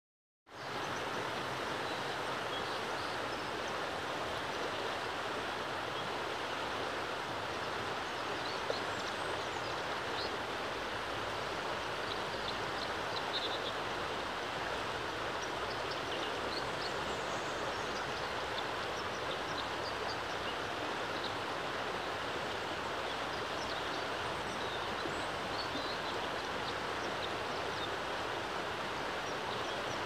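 Fast-flowing river water rushing steadily over rocks and shallow rapids, with a few faint high chirps now and then over it.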